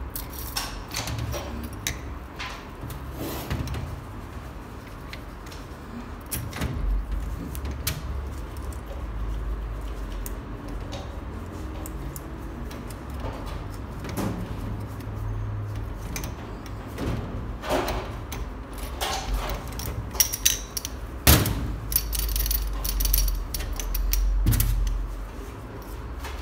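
Small steel parts of a diesel injection pump clicking and clinking as they are handled and fitted together by hand, with a quick run of louder clinks near the end, over a low steady rumble.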